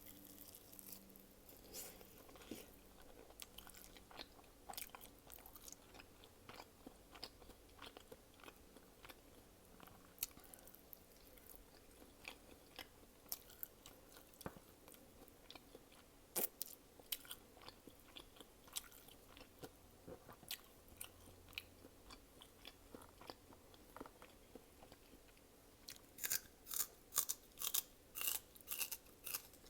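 Close-miked chewing: a person eating with wet mouth clicks and smacking scattered throughout. The smacking grows louder and comes about three times a second near the end.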